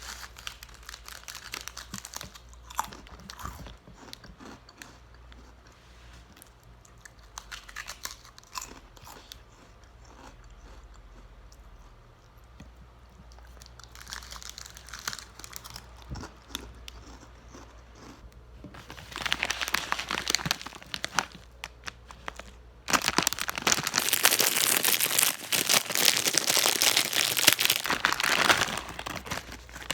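Close-up crinkling and crunching, most likely plastic food packaging being handled and torn open: scattered small crackles and clicks at first, then two long stretches of loud, continuous crinkling in the second half.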